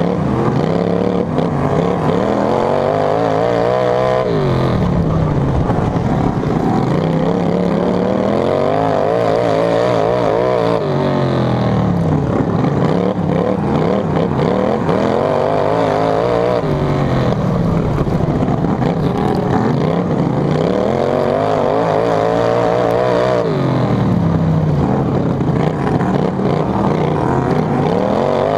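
Racing lawn tractor's engine heard from on board, revving up and down in long swells. Its pitch rises and falls about every six seconds as it accelerates down the straights and backs off for the turns.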